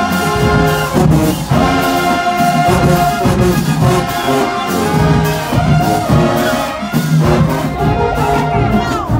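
Live marching band playing a loud, brass-heavy tune.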